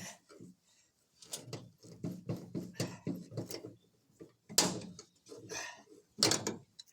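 Irregular clicks, knocks and short scrapes of hand tools working a thin sheet-metal panel as the cut-out is freed.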